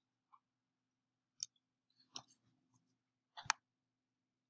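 Scattered faint clicks of a computer mouse and keyboard in use, about four, the last two close together near the end, over a faint steady hum.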